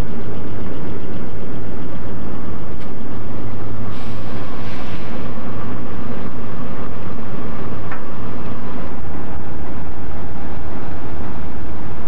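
Diesel-electric locomotive engines running steadily at idle, a loud low drone. A brief hiss sounds about four seconds in.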